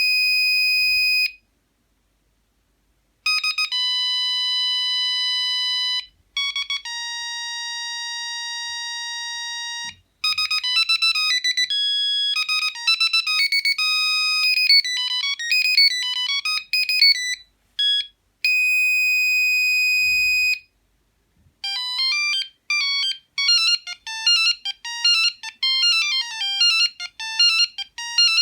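Sony CMD-CD5 mobile phone playing a run of its built-in ringtones: long held electronic tones separated by short pauses, then quick tunes of short, fast-changing notes.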